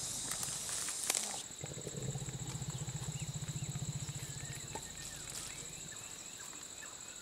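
A sedated Asian elephant snoring: a low, rattling breath tails off about a second in, and a louder one follows from about one and a half seconds to about five seconds. A steady high-pitched drone runs underneath.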